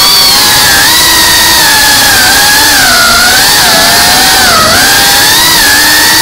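FPV drone's electric motors and propellers whining loudly, the pitch wavering up and down constantly with the throttle.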